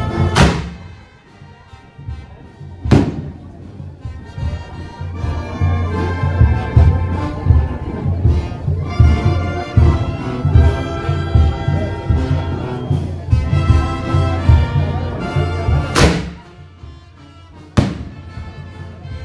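Two thunder bombs (bombas de trueno) fired from a mortar tube set in the street. Each goes up with a sharp thump and bursts with a loud bang a couple of seconds later: one pair near the start and one near the end. Band music with a heavy bass plays throughout.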